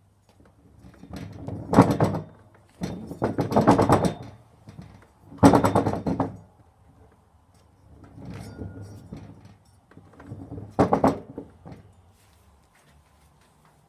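Washing machine drum being turned in five separate spins, each a rumbling, knocking run of one to two seconds, the sound of worn drum bearings.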